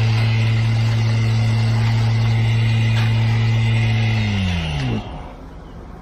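Small gas engine of a vibrating power screed running at a steady high speed as the blade vibrates across wet concrete. About four seconds in it winds down, dropping in pitch, and stops about a second later.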